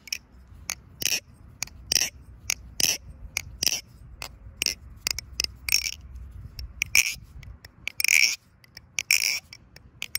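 Purple Vortex balisong being flipped: a string of irregular, sharp metallic clacks as the handles and blade swing and strike, some ringing out. It is still flipping with one screw snapped off inside it.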